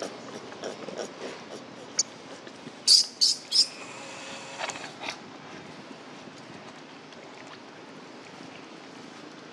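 Three short, sharp, high-pitched squeals from a baby macaque about three seconds in, one after another, over a low steady background with scattered soft clicks.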